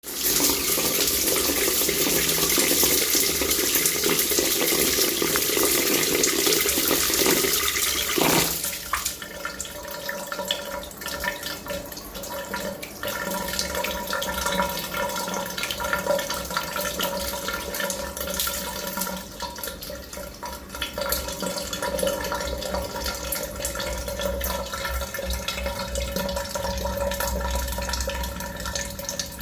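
Water tap running hard with a loud steady rush. It is cut back sharply about eight seconds in, leaving a quieter flow with scattered drips and a faint steady tone.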